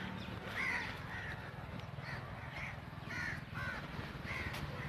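Crows cawing repeatedly, about eight short harsh calls, over a steady low hum.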